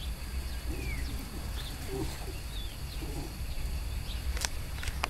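Wind rumbling on the microphone, with scattered short high chirps and a few soft low grunts, and two sharp clicks near the end.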